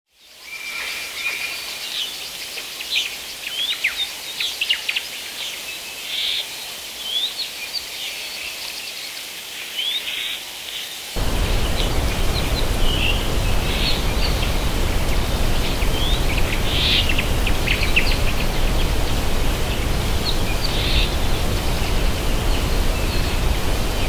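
Mixed wild birdsong, many short chirps and whistles. About eleven seconds in, the steady rush of a large waterfall cuts in suddenly and becomes the loudest sound, with the birds still calling over it.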